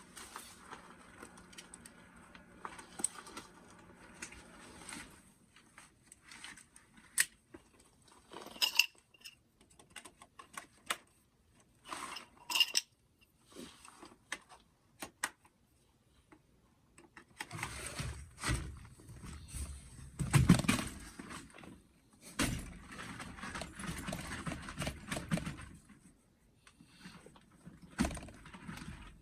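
Scattered clinks and knocks of camp gear being handled, with a longer stretch of rustling, thudding handling noise about two-thirds of the way through.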